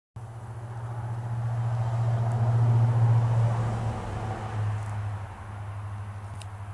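Domestic cat purring steadily while being stroked, loudest about halfway through.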